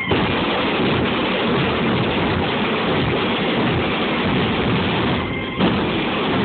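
A mass of bass drums and snare drums pounded all at once in a dense, loud, continuous din. It breaks off briefly about five seconds in and comes back with a hit.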